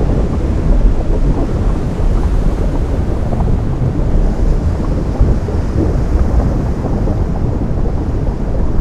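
Sea surf where lava meets the ocean: a loud, steady deep rumble of water, with no single crash standing out.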